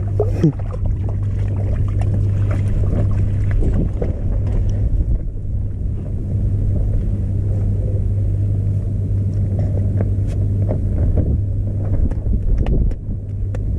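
A motor drones steadily at a low pitch, with a few light clicks and knocks over it.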